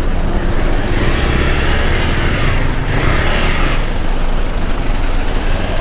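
Motorcycle engine running at low speed in heavy traffic beside idling lorries, with wind and road noise on the rider's camera microphone. There is a louder hiss about three seconds in.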